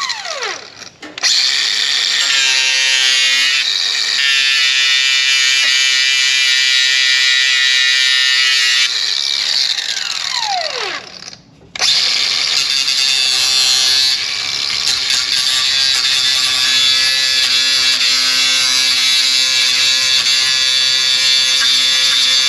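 Handheld angle grinder running on metal in two long runs, each ending with the motor's falling whine as it spins down after release, with a short pause about halfway.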